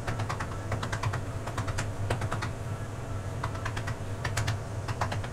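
A hand patting a ball of jowar (sorghum) dough flat into a roti, making quick, irregular light pats and taps, over a steady low hum.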